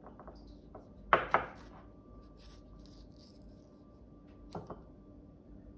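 Kitchen knife slicing through a tomato held over a small dish: two sharp cuts about a second in, and two softer ones about four and a half seconds in.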